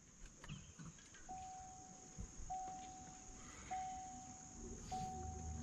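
Faint electronic chime: four identical steady beeps, each about a second long, repeating about every 1.2 seconds from about a second in.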